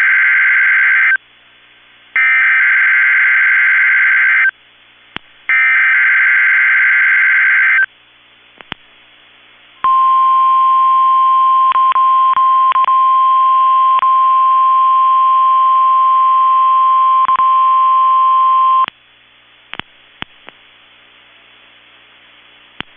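NOAA Weather Radio emergency alert: the tail of one SAME header data burst and two more, each a warbling two-tone squeal about two seconds long with a second's gap between. Then the steady 1050 Hz warning alarm tone sounds for about nine seconds, followed by faint radio hiss with a few clicks.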